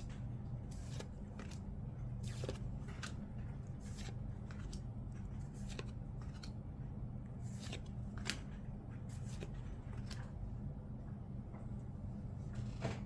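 Trading cards being flipped and slid one after another in the hands, a quick papery swish or snap about once or twice a second at an irregular pace, over a low steady hum.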